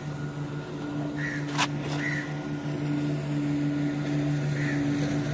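Fishing boat's engine running steadily at sea, with a sharp click about one and a half seconds in.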